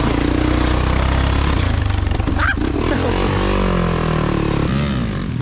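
Small off-road vehicle engine running and revving, its pitch rising and falling, with a sharp knock about two and a half seconds in.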